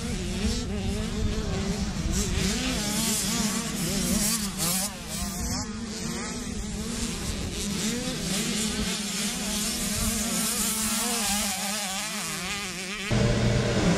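Motocross dirt bike engines buzzing and revving up and down as the bikes ride the track, several at once. About a second before the end the sound changes abruptly to a louder, steadier engine drone.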